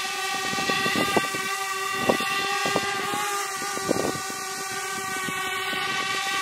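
DJI Mavic Air quadcopter's motors and propellers hovering close by, a pretty loud, steady whining buzz of several tones at once, with a few brief thumps.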